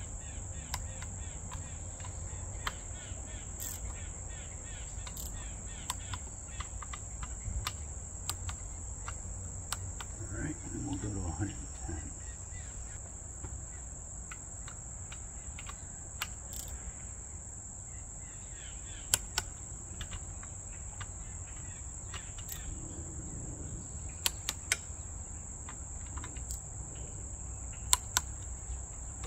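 A torque wrench tightening carburetor mounting bolts gives sharp double clicks three times in the second half: the wrench releasing as each bolt reaches its set torque of 110 inch-pounds. Fainter scattered ticks come in the first several seconds. Steady insect chirring, typical of crickets, runs underneath.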